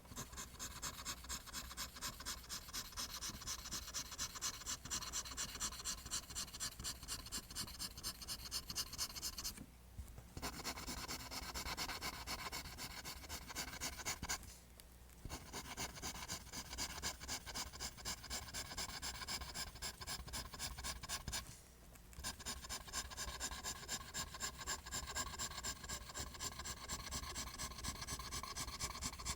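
Pencil scratching on paper in rapid, repeated line strokes, briefly pausing three times.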